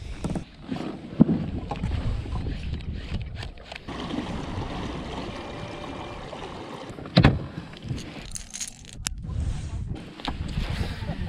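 Wind buffeting the microphone over water noise on a fishing kayak, with a sharp knock of gear about a second in and a louder knock a little after seven seconds.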